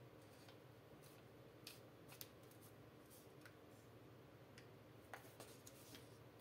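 Faint crinkles and a few sharp clicks of a sheet of origami paper being folded and creased by hand, over near silence.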